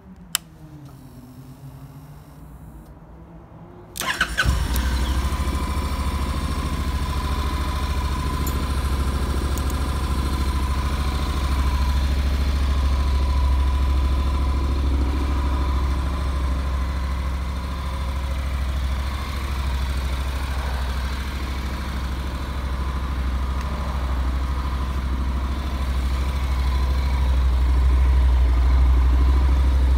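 A motorcycle engine fires up on its electric starter about four seconds in and settles into a steady idle. A single sharp click comes shortly before, and the idle grows a little louder near the end.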